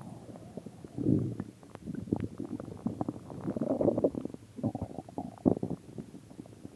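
A person's stomach growling: irregular gurgling rumbles with small pops and clicks, coming in several bursts, with the strongest about a second in and again between about three and a half and five and a half seconds.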